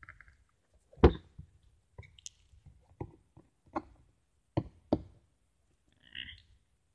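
Cardboard figure box being handled, giving a string of separate sharp knocks and taps, the loudest about a second in, with a short scrape near the end.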